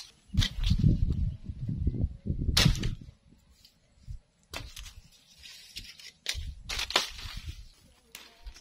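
Machete chopping dry branches: a series of sharp whacks at irregular intervals, with dry twigs and leaves rustling and crackling between strikes.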